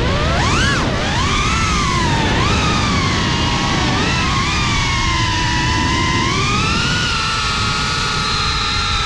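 FPV quadcopter's brushless motors whining with a rushing noise underneath. The pitch jumps up and drops back within the first second, swells twice more with the throttle, then holds a steadier high whine.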